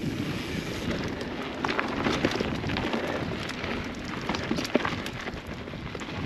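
Transition Spire mountain bike being ridden on a dirt trail: tyres rolling over dirt and rocks, with many small clicks and rattles over a steady rushing noise.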